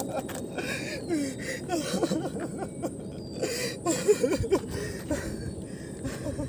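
A man's soft chuckling and muttering, with a few scattered clicks and a dull thump about four seconds in.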